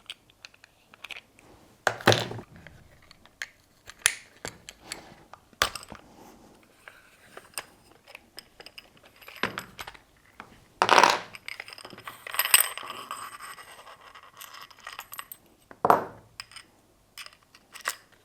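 Scattered metal clinks, knocks and scrapes of tools and parts while the barrel nut is taken off a Novritsch SSR9 airsoft sniper rifle and its outer barrel removed, with a longer scraping stretch a little past the middle.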